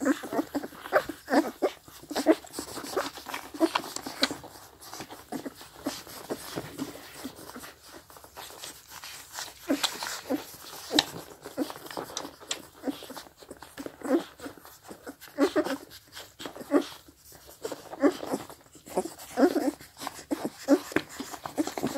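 Four-week-old Scottish deerhound puppies suckling at their mother: a steady run of short, wet sucking and smacking noises with little squeaky sounds, a couple every second, thinning out for a few seconds midway and busier again near the end.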